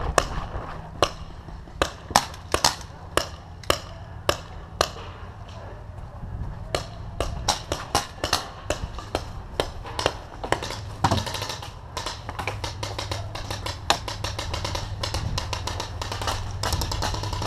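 Paintball markers firing during a game: sharp pops, some single and some in quick strings, irregularly spaced and growing denser from about seven seconds in.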